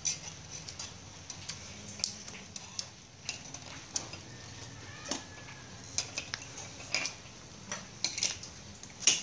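Scattered light clicks and clinks of metal tongs and chopsticks against plates and bowls beside a charcoal grill, irregular, with the sharpest click near the end.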